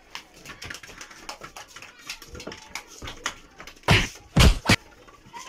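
Children's feet scuffing and tapping on a concrete floor as they kick a small rubber ball around, with three loud thumps close together about four seconds in.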